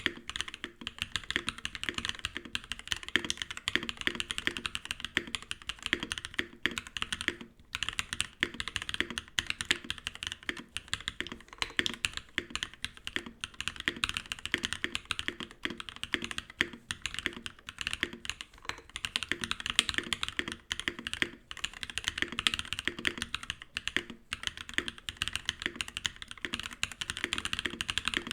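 Continuous fast typing on a Viendi 8L mechanical keyboard with lubed Durock POM linear switches, a plate-foamed build without case foam; a dense run of keystroke clacks with a couple of brief pauses.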